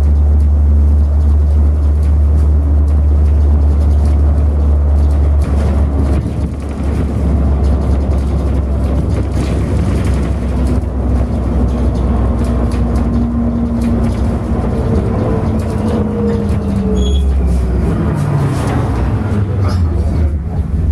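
City bus engine drone and road noise heard from inside the passenger cabin, steady and low. In the second half a whine rises a little and then falls away in pitch over several seconds.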